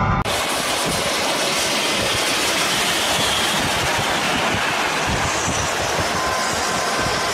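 Loud, steady wind and road rush from a car moving at highway speed, recorded on a phone in a moving car. It starts abruptly, cutting off music a moment in.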